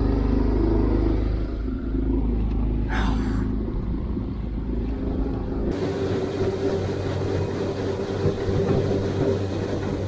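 Yamaha 9.9 hp outboard motor running steadily, driving a small skiff at speed, mixed with wind and water rushing past the hull. The tone changes abruptly a little over halfway through.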